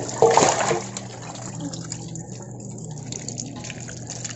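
Sliced yellowfin tuna pieces tipped into a basin of water with a splash a quarter-second in, the loudest sound, followed by water running steadily as the fish is rinsed.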